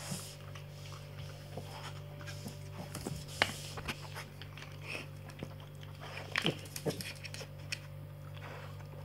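Silky terrier nosing a small plastic toy across a tile floor: scattered knocks and clicks as the toy and claws hit the tiles, with bouts of biting and chewing. The sharpest knocks come about three and a half seconds in and again about six and a half seconds in, over a steady low hum.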